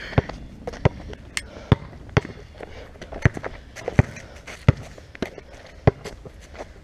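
Basketball bouncing on asphalt as it is dribbled: about ten sharp bounces, a little unevenly spaced, roughly every two-thirds of a second.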